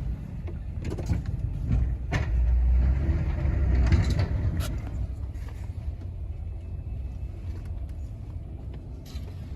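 Snowplow truck running and driving: a steady low engine and road rumble that swells with a rushing noise between about two and four seconds in, with a few brief knocks.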